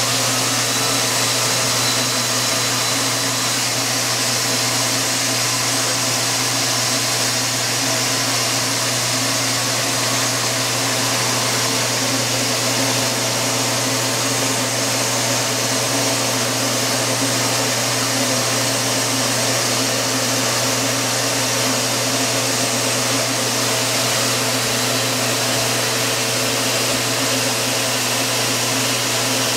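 Vacuum cleaner running steadily, a loud even whooshing over a constant low motor hum.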